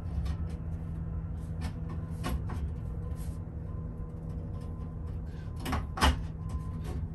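Steel stovepipe adapter being worked onto a stovepipe by hand: scattered light clicks and knocks of metal parts, with two sharper knocks about six seconds in, over a steady low hum.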